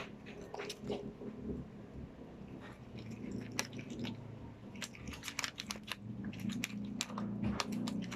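Glue-and-activator slime being kneaded and mixed by hand, giving scattered short sticky clicks that come more often in the second half.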